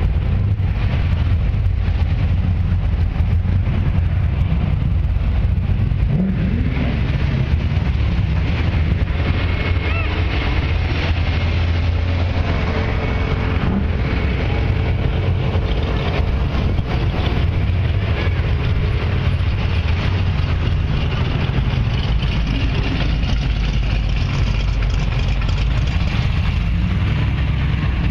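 Classic cars driving slowly past one after another, their engines running at low speed.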